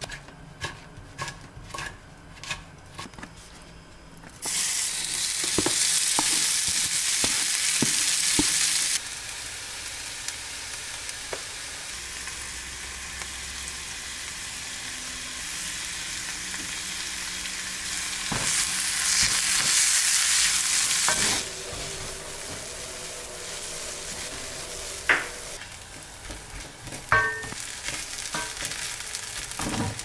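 Kitchen knife chopping kimchi on a wooden cutting board, about two strokes a second, then from about four seconds in kimchi sizzling and frying in a pan as it is stirred. The sizzle is loud at first, settles, swells again for a few seconds midway, and a few sharp knocks of utensil on pan come near the end.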